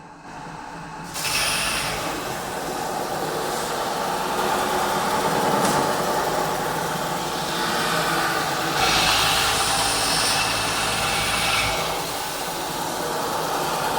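CNC metal spinning machine running, its roller pressing a 1.5 mm DKP cold-rolled steel blank on the spinning mandrel. The machine noise comes up about a second in and runs on steadily, with a high hiss that swells and fades as the roller works.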